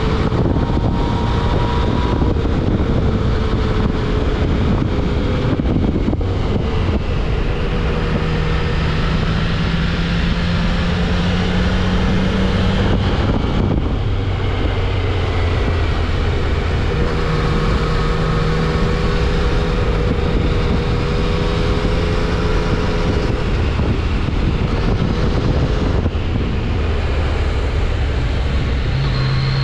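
Yamaha XSR900's inline three-cylinder engine running through its stock exhaust while riding, the note climbing and falling away as the throttle opens and closes, under heavy wind rush on the microphone.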